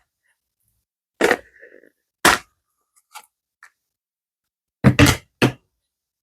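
Sharp clicks and knocks of small hard objects being handled and set down on a work surface: one about a second in, another a second later, a few faint ticks, then a quick run of three near the end.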